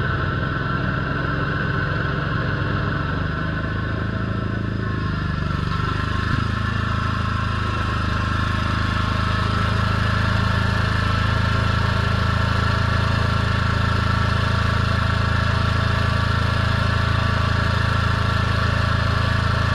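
Kawasaki FX691V V-twin engine of a Bob-Cat XRZ zero-turn mower running steadily. About six seconds in the engine note changes, then holds steady and a little louder.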